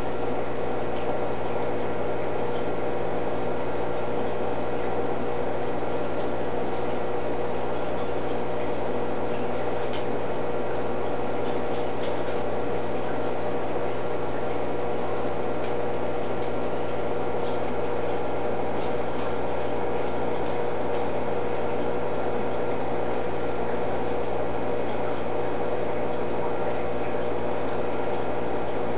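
Steady mechanical hum and hiss with a few fixed tones, the running sound of a small aquarium's pump and equipment, with a few faint ticks.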